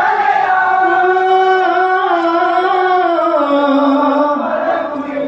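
Singing in a Malayalam Onamkali song: one long held sung note without words, stepping down in pitch several times through the phrase.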